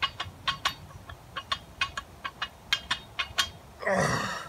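Quick light clicks of a 45-lb barbell, in pairs about twice a second, with each fast bench-press rep. A louder drawn-out sound comes near the end.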